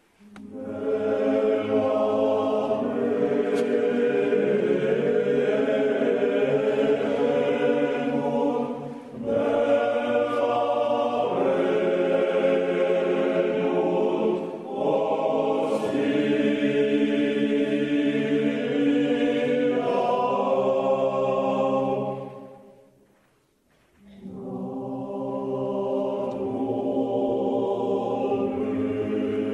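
Music of choir voices holding long, slow chords in phrases. About three-quarters of the way through it fades almost to silence, then a new phrase begins.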